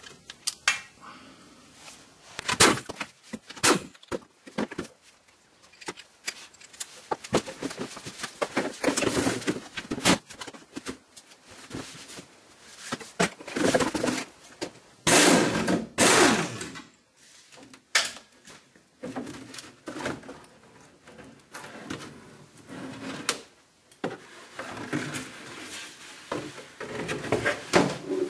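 Sheet-metal exhaust heat shield of a BMW E46 being worked loose and pulled down from the underbody: irregular clanks, knocks and crinkling scrapes of thin metal, with tools clattering. A longer scrape about fifteen seconds in is the loudest.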